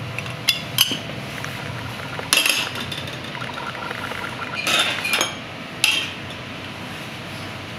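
Metal spoon clinking against small copper saucepans and the stainless-steel counter: a handful of sharp clinks, some in quick runs, over a steady low hum.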